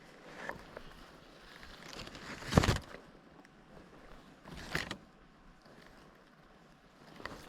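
Rustling and crunching as a player in a leaf suit moves through undergrowth: a loud brushing crunch about two and a half seconds in, a smaller one near five seconds, and faint rustling between.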